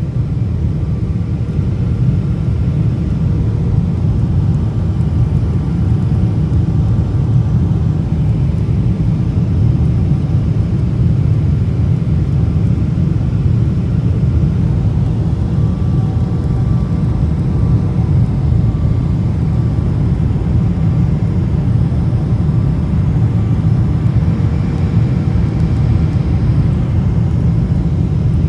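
Jet airliner cabin noise on landing approach: a steady low rumble of engines and rushing air heard from inside the cabin, with a faint steady whine over it.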